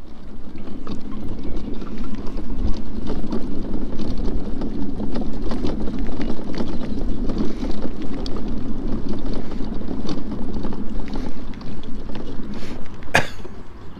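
Off-road mobility scooter driving over a bumpy grass track: a steady, rough rumble of the drive and the ride jolting the handlebar-mounted camera, with wind on the microphone. A brief sharp noise comes near the end.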